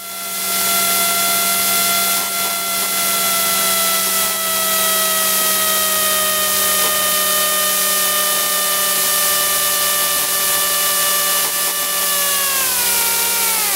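RV-4's piston engine and propeller droning in the cockpit over a rush of airflow during an inverted spin attempt. The engine note sinks slowly, then drops steeply near the end.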